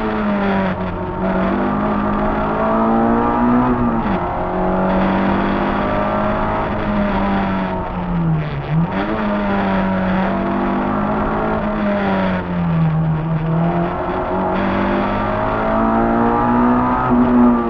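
Peugeot 106 1.3's four-cylinder engine heard from inside the cabin at full rally pace, revs held high and dipping sharply then climbing again several times, about four, eight and thirteen seconds in.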